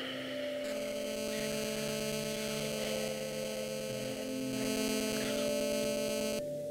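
Tense droning film score: a steady, buzzing chord of held tones with lower notes shifting underneath. It comes in sharply just under a second in and cuts off abruptly near the end.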